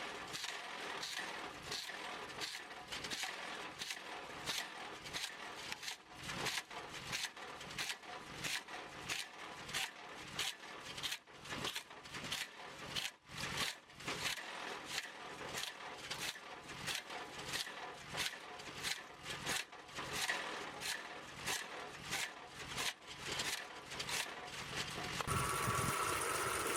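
Wood chunker chopping split slabs into chunks: a steady series of sharp woody knocks, about two a second. Near the end the knocks give way to a steady machine hum.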